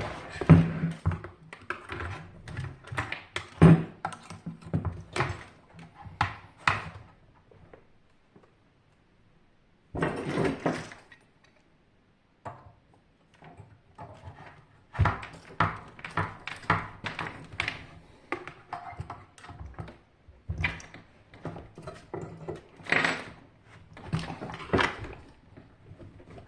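Irregular knocks, clanks and rattles of metal parts and tools being handled while a Hajdu AF-U-5 water heater is taken apart, with a short pause about eight seconds in.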